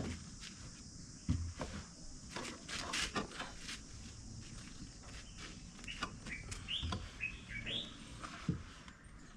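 Birds chirping in short, scattered calls over a steady outdoor hiss, with a few thumps about a second in and near the end.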